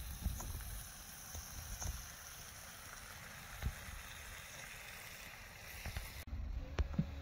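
Wind buffeting the microphone in uneven gusts on an open seashore, with a few light handling knocks. Near the end the sound changes abruptly and then cuts off.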